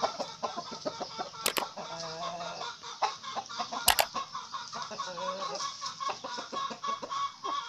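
A flock of free-range village chickens clucking continuously, with a couple of longer drawn-out calls about two and five seconds in. Two sharp clicks cut in about a second and a half and four seconds in.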